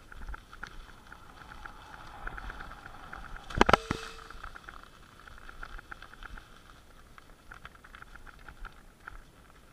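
Dry fallen beech leaves rustling and crackling underfoot as someone moves across the forest floor, in irregular small crunches. A short clatter of sharp knocks comes a little over three and a half seconds in.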